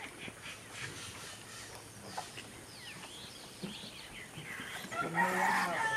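Rural outdoor ambience with several small birds chirping in quick rising and falling notes, busiest in the middle. A brief pitched call near the end.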